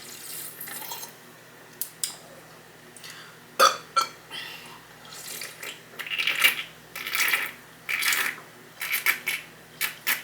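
A Sprite opened with one sharp snap a little over a third of the way in, then a run of short gulps, roughly one every half second to second, as the soda is drunk.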